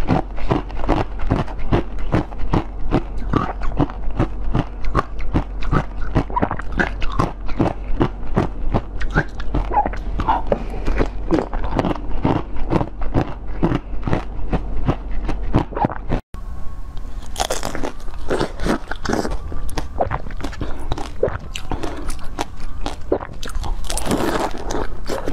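Close-miked eating sounds: blue jelly bitten and chewed in many quick, sharp bites and squelches. About 16 seconds in, after a brief cut-out, fewer and louder bites into a blue fruit-shaped treat follow.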